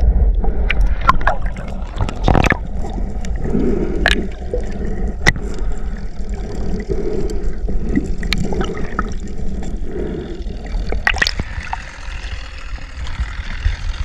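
Water rushing and gurgling against an underwater camera housing beside a speared king mackerel, with a steady low rumble and scattered sharp clicks and knocks. Near the end the camera breaks the surface and a hiss of surface water takes over.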